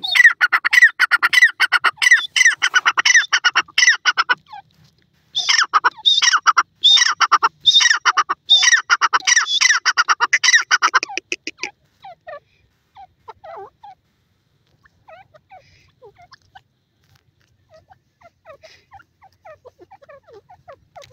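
Grey francolin calling in two long runs of rapid, repeated notes, the second starting about five seconds in. Faint, scattered chirps follow for the second half.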